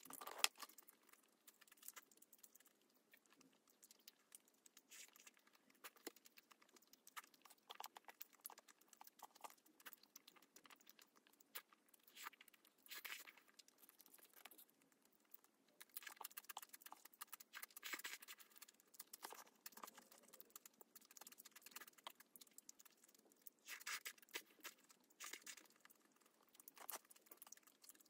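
Faint close-miked eating: a person chewing mouthfuls of food, with irregular wet mouth clicks and smacks.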